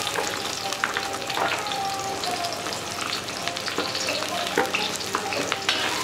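Sliced shallots and garlic sizzling in hot oil in a wok, being stir-fried until fragrant, with a spatula scraping and clicking against the pan as they are stirred.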